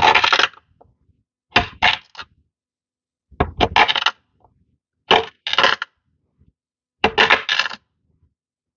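Kinetic sand being cut and crushed: crisp, gritty crunching in five short bursts about a second and a half apart, each of two or three quick strokes.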